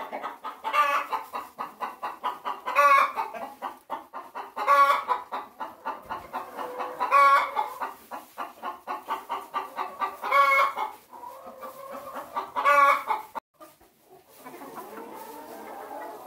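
Chickens cackling: a run of rapid clucks broken by a louder, drawn-out squawk about every two seconds. Near the end the cackling stops and a quieter murmur of clucking from the flock follows.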